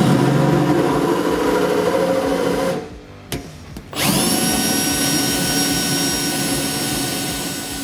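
Cordless drill boring out a pilot hole to a larger size in the sheet-metal bed of a pickup, the bit cutting through the steel. It runs for nearly three seconds, stops for about a second, then spins back up with a rising whine and runs steadily again, easing off near the end.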